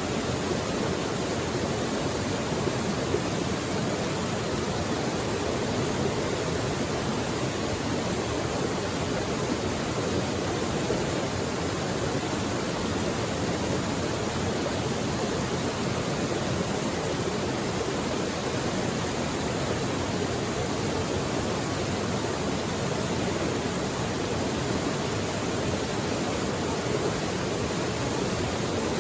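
Mountain creek flowing: a steady, even rush of running water.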